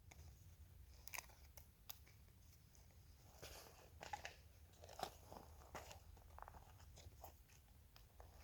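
Dry birch bark being split into strips: faint, scattered crackles and small snaps, a few slightly sharper than the rest.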